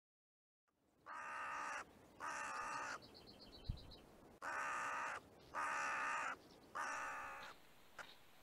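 A crow cawing five times: two harsh caws, a short pause, then three more. A short low thump sounds between the two groups.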